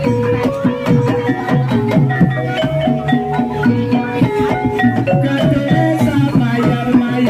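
Banyumasan gamelan music accompanying an ebeg dance: mallet-struck pitched instruments playing a busy, repeating melody of short ringing notes over a steady low pulse.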